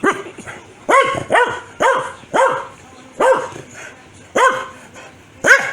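Corgi barking repeatedly: about eight short, loud barks, roughly one every half second to a second, with slightly longer gaps in the middle.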